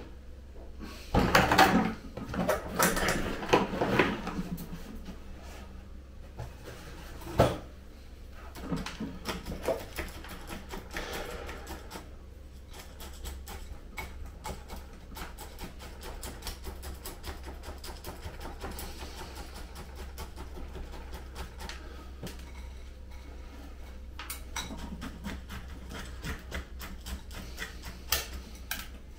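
Granular bonsai substrate being handled and worked into a plant pot with a chopstick. About a second in, a loud scraping and rattling lasts around three seconds, and a single knock comes some seconds later. Then a long run of light clicking and scratching follows as the grit is poked in around the roots.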